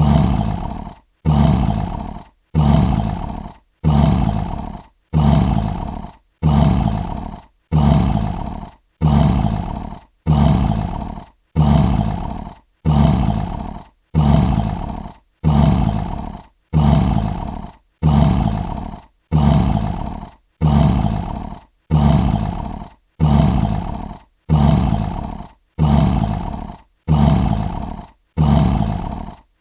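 A short lion roar sound effect looped over and over, one roar about every second and a third. Each roar starts loud, fades, and cuts off sharply before the next.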